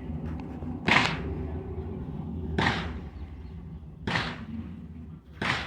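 Rifle shots fired one at a time, four in all, about a second and a half apart, each a sharp crack with a short echoing tail.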